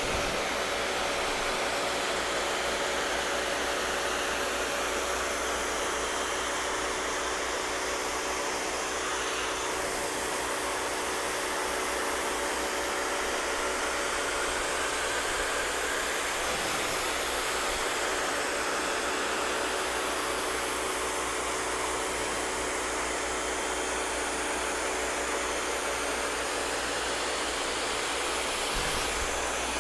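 Rock & Rocker 3000 PSI electric pressure washer running steadily, a dense hiss of the water jet over a steady motor-and-pump hum. The pump on this heavily used unit seems to be going out, so it gives less pressure and cleans slower.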